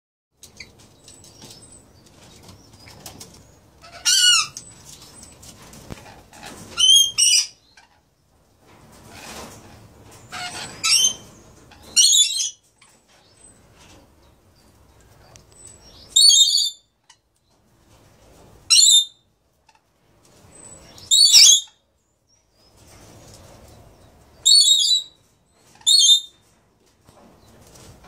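Rainbow lorikeets (Swainson's or Blue Mountain lorikeets) giving short, shrill, high-pitched screeches, about ten of them at irregular intervals, some in quick pairs, with quieter low noise between the calls.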